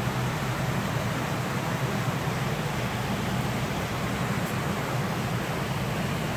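Steady rushing noise, like running water, with a low hum underneath.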